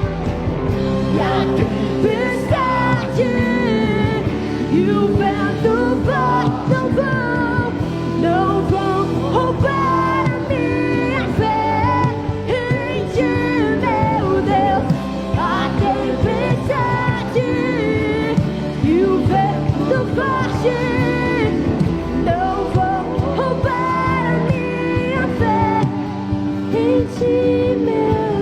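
A worship song: voices singing over a band accompaniment.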